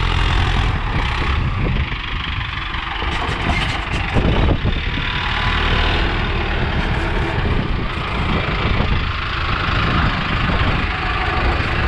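Mahindra Arjun Ultra-1 555 DI tractor's diesel engine running at full throttle, heard close up from beside the driver's seat.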